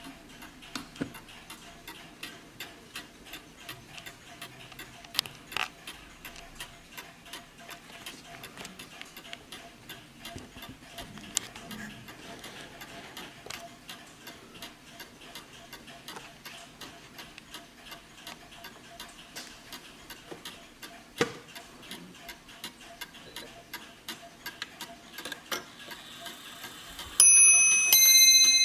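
Warmink Wuba Beidemeijer mantel clock ticking steadily. Near the end its chime begins: two bell strikes whose tones ring on.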